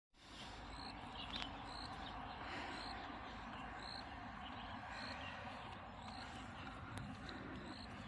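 Faint outdoor ambience: a short, high chirp repeating about once a second over a steady background hiss.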